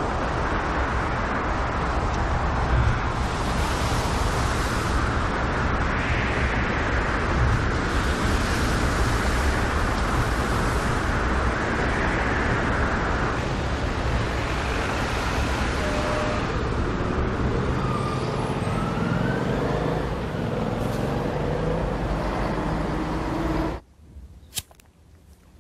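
Storm wind and breaking surf: a loud rushing noise that swells and eases in gusts, with faint whistling glides toward the end. It cuts off suddenly to a quiet room, where a single sharp click of a cigarette lighter follows.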